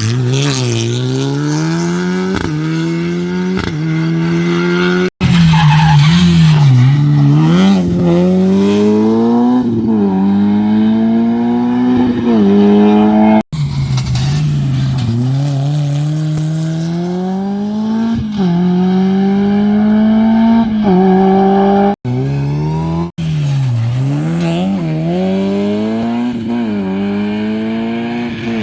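Rally cars driven hard, engines revving up and down again and again as they accelerate, shift and lift off, with tyres squealing. The sound is a run of short clips joined by abrupt cuts.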